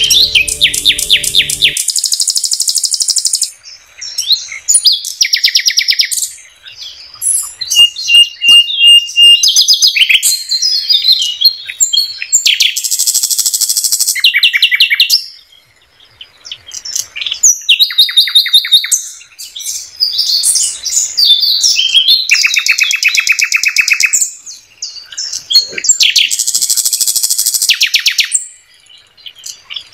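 Sikatan londo (nightingale) singing: loud phrases of rapid repeated notes and trills with short pauses between them, including a held clear whistle about 8 seconds in. A low background layer of music stops about two seconds in.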